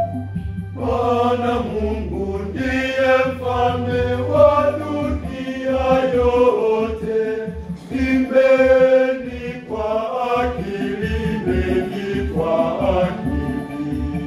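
Church choir of mixed voices singing a hymn in parts, with keyboard accompaniment and a steady pulsing bass line. The choir comes in together about a second in, after a short keyboard passage.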